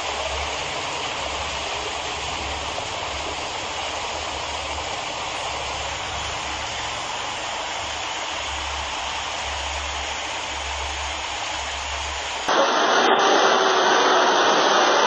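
Steady rushing of floodwater, with a low fluttering rumble of wind on the microphone underneath. Near the end it cuts abruptly to a louder, brighter rush of water.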